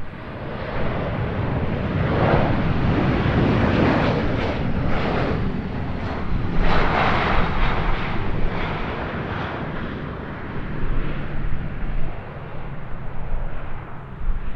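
Jet airliner engines passing close by: a loud, broad rumble that builds about a second in, peaks twice, then eases off.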